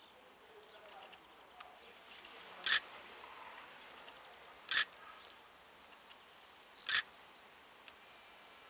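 A bird giving three short, harsh calls, evenly spaced about two seconds apart.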